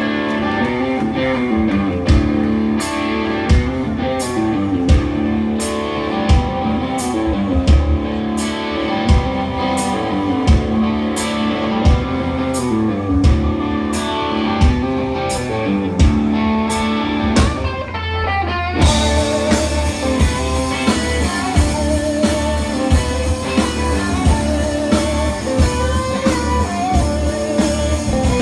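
Live rock band playing an instrumental passage: electric guitars with bent notes over drums keeping a steady backbeat. About two-thirds of the way in, the drums switch to a busier beat with constant cymbals.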